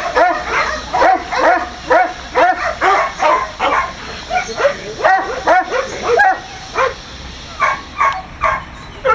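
A dog barking over and over in short yaps, about two a second, with a couple of brief pauses.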